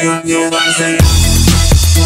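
Electronic dance music. A falling sweep runs over a light beat, then about a second in a heavy bass line and a fast, hard beat drop in.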